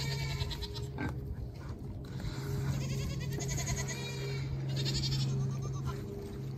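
Curly-coated Mangalica pigs squealing and grunting as they crowd in to eat, with several short bouts of high, raspy squeals, over a steady low hum.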